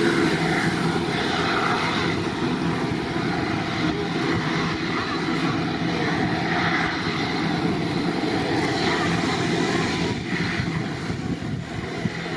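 Boeing 787's twin turbofan engines running steadily at low power as the airliner taxis along the runway, heard from behind the aircraft.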